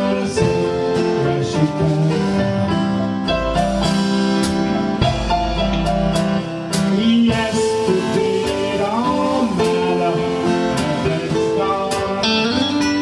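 A rock band playing live, with electric and acoustic guitars, drums and singing.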